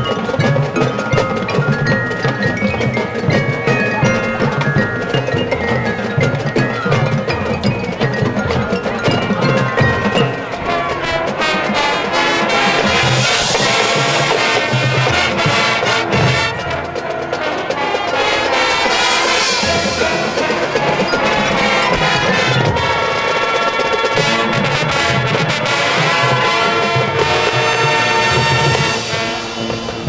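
Marching band playing, its front ensemble of mallet percussion, chimes and drums prominent; the full band swells louder and brighter about twelve seconds in, with several more swells after.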